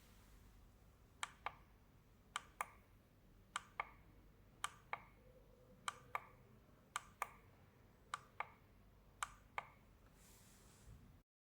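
Buttons on an alarm clock bedside lamp being pressed over and over: eight sharp double clicks, about one a second, over a faint hiss.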